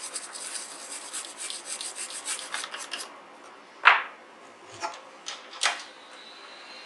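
Small brush scrubbing the solder side of a circuit board with isopropyl alcohol in quick, rasping strokes, cleaning off flux after soldering. It stops about three seconds in, followed by a few sharp knocks, the loudest about four seconds in. Near the end a handheld electric blower starts with a steady whir and a faint high whine.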